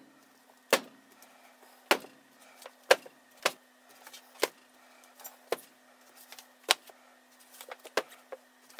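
Books slapped down one after another onto a stack on a desk, about eight sharp slaps roughly a second apart, over a faint steady hum.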